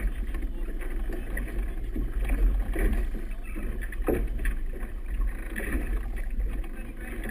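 Wind rumbling on the microphone of a camera mounted on a boat, with water rushing and splashing against the hull in choppy water in uneven surges.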